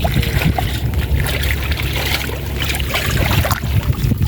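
Water splashing and trickling in shallow floodwater as a fine gill net is handled, with irregular splashes strongest around the middle, over a steady low rumble.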